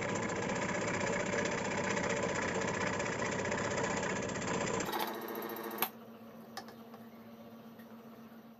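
Scroll saw running, its blade cutting a paper pattern out of thin plywood with a fast, even buzz. About five seconds in the sound changes and drops much quieter.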